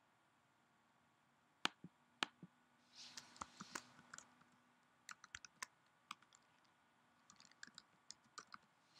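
Typing on a computer keyboard: short bursts of quick key clicks, three runs in all, starting after two sharp single clicks a couple of seconds in.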